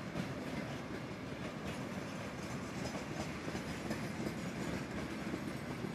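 Freight train of railway tank wagons rolling past at speed: a steady rumble of steel wheels on the rails, with faint scattered clicks.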